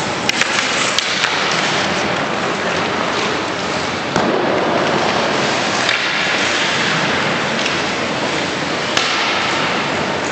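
Ice hockey play: a steady scraping hiss of skate blades on the ice, broken by a few sharp clacks of sticks and puck, several in the first second or so and single ones about six and nine seconds in.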